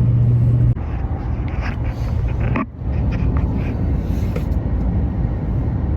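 Road and engine noise inside a moving car's cabin: a steady low rumble, with a low hum that drops away about a second in and a brief dip near the middle.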